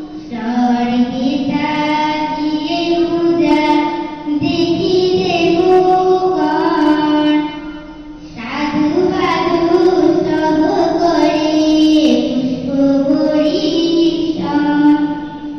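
Children singing a Bengali Buddhist devotional verse (gatha), one melodic line, with a brief pause about halfway through before the next line begins.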